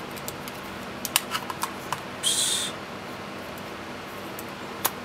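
Small sharp plastic clicks and taps as a phone is handled and fitted into a spring clamp of a plastic smartphone tripod holder, a cluster of them about a second in and one more near the end. There is a short hissy rustle a little after two seconds.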